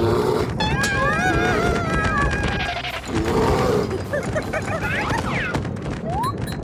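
Cartoon soundtrack: a dense run of rapid thuds and rumble under music, with squeaky, gliding cartoon-voice sounds from the ants, strongest about a second in and again near the end.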